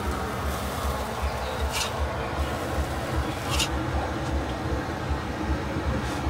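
Steady low street rumble, with two brief hisses from a burger bun being pressed with a spatula on a hot flat steel griddle, about two seconds and three and a half seconds in.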